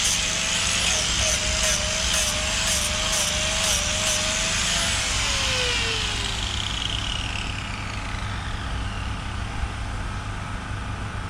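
Power sander working an elm wood carving, its motor whine and abrasive hiss running steadily, then switched off and spinning down with a falling pitch about five seconds in. A steady low hum continues underneath.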